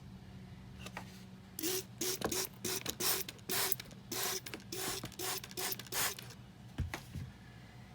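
A trigger spray bottle squirting soapy water onto a propane fitting to check it for leaks: about a dozen quick hissing squirts in a row over roughly five seconds, each with a small squeak of the trigger, over a faint steady hum.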